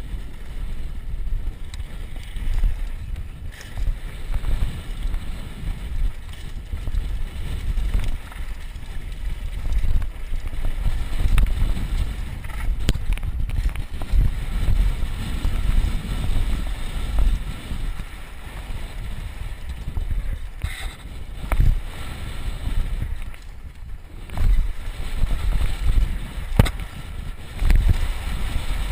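Wind rushing over a helmet camera's microphone and the rumble of a mountain bike riding fast down a dirt trail, with a few sharp knocks along the way.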